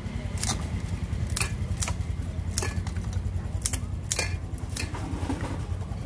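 Kitchen scissors snipping raw seafood, about seven sharp snips spread across a few seconds, over a steady low hum.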